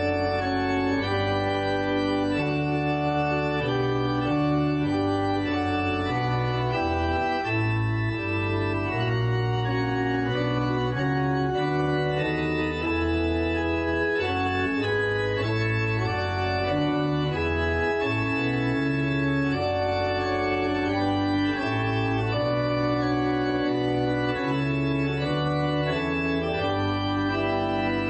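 Two-manual electronic organ with pedalboard playing slow, sustained chords over a bass line that moves from note to note, at a steady volume.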